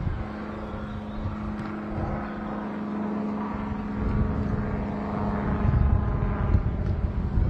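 A steady mechanical drone held at one pitch, with wind rumbling on the microphone and growing stronger about halfway through.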